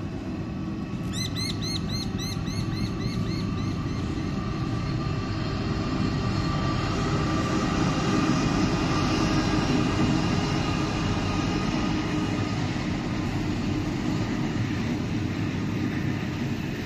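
A long freight train passing on the rails, a steady rumble of wagons that swells and then eases slightly. About a second in, a bird gives a quick run of chirps lasting a few seconds.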